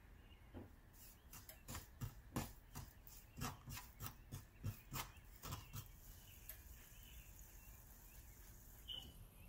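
Wooden spatula scraping and knocking against a nonstick wok as gram flour is stirred into hot oil: a quick, irregular run of short strokes for the first few seconds, then they stop.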